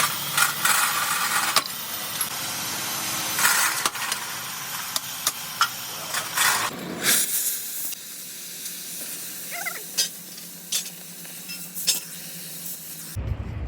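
Sizzling hiss with frequent sharp crackles, like electric welding on steel, in shots cut together. The sound changes abruptly about seven seconds in, and a low rumble takes over just before the end.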